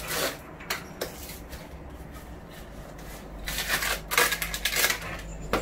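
Paper and plastic packaging rustling as it is handled, in short irregular scrapes, with a busier stretch of rustling in the second half.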